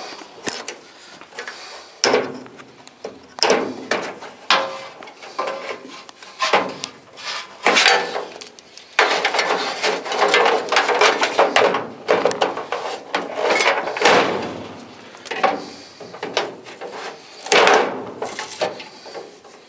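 Irregular knocks, clanks and scraping as an old furnace's metal parts and copper wiring are pulled and broken apart for scrap.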